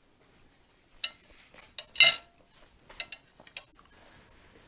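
Metal fork clinking against a china plate: a handful of short separate clinks, the loudest about two seconds in.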